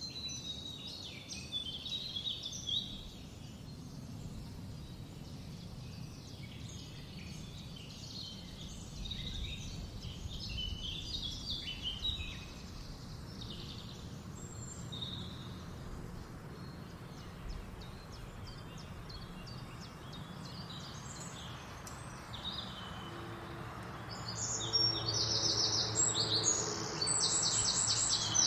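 Wild birds singing and chirping over a low background rumble. Near the end a louder, rapid trill repeats several times.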